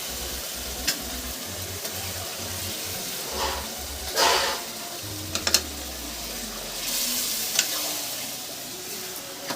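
Marinated chicken sizzling as it fries in hot oil and masala in a pan, with a spatula stirring it; a few louder scrapes and knocks against the pan come around the middle.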